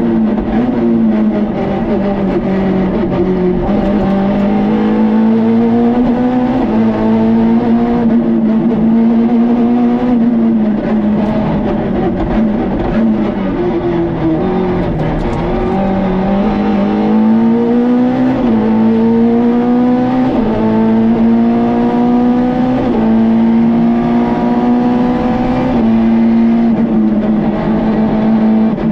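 Peugeot 106 rally car's four-cylinder engine heard from inside the cockpit at full stage pace: the note climbs hard again and again, each climb cut by a drop in pitch at a gear change or lift, about every two to four seconds, over steady road noise.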